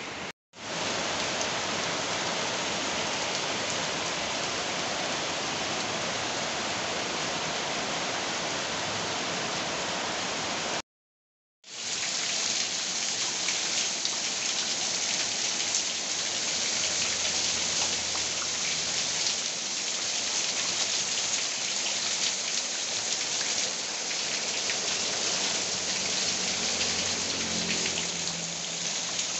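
Heavy rain falling steadily, a dense even hiss of drops on surfaces. The sound cuts out completely twice, briefly about half a second in and for about a second near the eleven-second mark.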